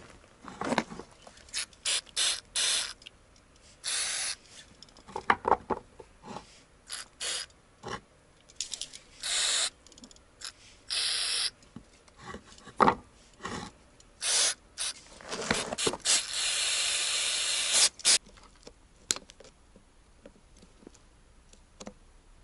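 Aerosol cleaner sprayed in repeated short hissing bursts, with one longer spray of about two seconds near the end, onto the rusted, seized retaining ring of a clutch master cylinder. Light clicks and knocks of the metal part and can being handled come between the sprays.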